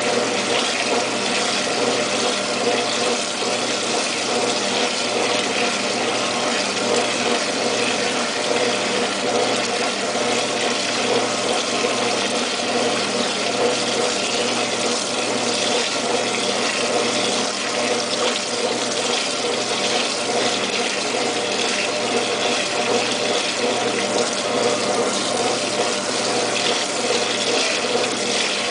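Washing machine running mid-cycle: a steady rush of water over a constant motor or pump hum.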